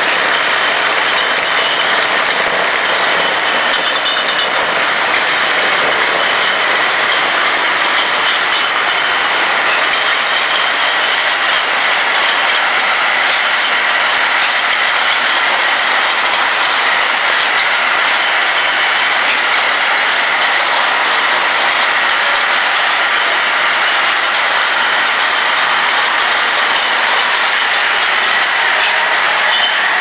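Automatic beer-bottle washing machine running: a steady, dense mechanical clatter from its chain-driven conveyor and the glass bottles it carries, with faint ticks throughout.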